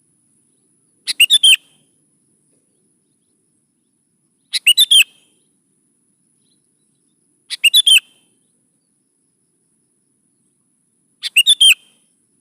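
Sooty-headed bulbul (kutilang) singing: four short phrases, each a quick run of a few whistled notes, spaced about three to four seconds apart.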